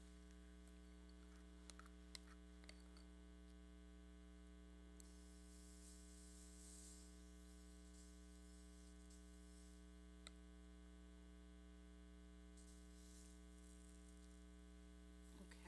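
Near silence under a steady electrical mains hum, with a few faint clicks.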